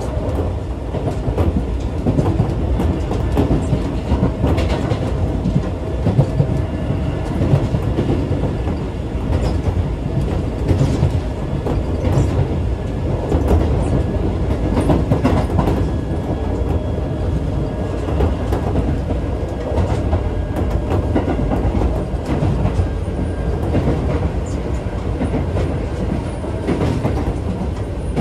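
Inside a Keisei 3400 series electric train car running at speed: a steady low rumble of wheels and bogies, with scattered clacks as the wheels pass over rail joints.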